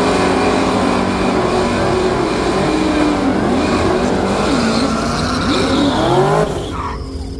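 V8 car engine revving hard during a burnout, its pitch swinging up and down, with tyres squealing. The sound drops away about six and a half seconds in.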